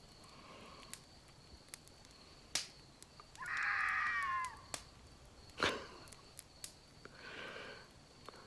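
Fox screaming in the woods: one drawn-out scream about three seconds in, falling in pitch at its end, and a fainter call near the end. Scattered sharp clicks come in between.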